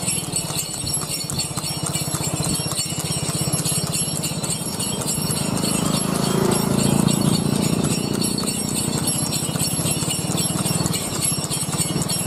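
A horse trotting on a paved road pulling a light two-wheeled cart: hooves clip-clop in a steady beat, and bells on its harness jingle along.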